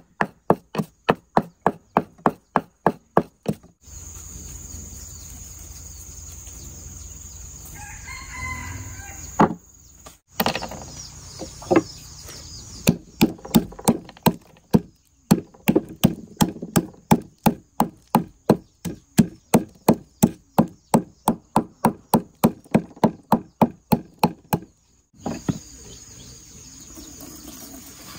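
Wooden pestle pounding in a wooden mortar, crushing peppercorns and then peeled cloves: sharp, even knocks about three to four a second, broken by a pause of several seconds. A rooster crows in the background during the pause.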